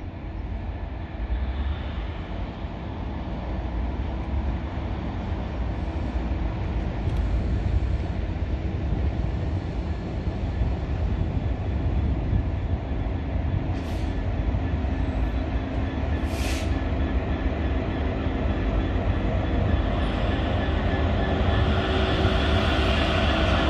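GB Railfreight Class 66 diesel locomotive with its EMD two-stroke V12 engine running as it approaches slowly and draws alongside. It hauls a dead Class 701 electric unit, and the sound grows steadily louder toward the end. Two brief high squeaks come just past the middle.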